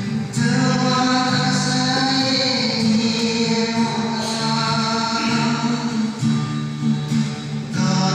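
A man singing with an acoustic guitar accompaniment through a microphone and PA, holding long notes that change every second or so.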